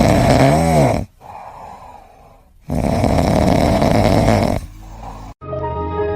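A pet snoring loudly: two long, noisy breaths of about two seconds each, the first with a brief wavering tone at its end.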